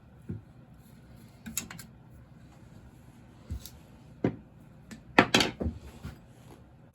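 Metal chainsaw parts and tools being handled, clinking and knocking. There are scattered single knocks, then a quick cluster of clatter, the loudest, about five seconds in.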